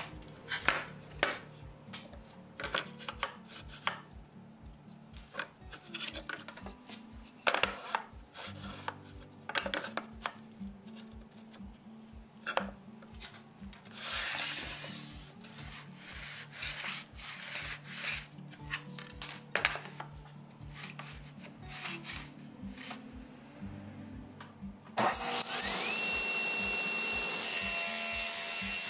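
Wooden spoke blanks knocked and slid about on a table saw and its sled, a series of scattered clacks and rubs. About 25 s in, the table saw motor switches on: its whine rises quickly, then runs steady and loud.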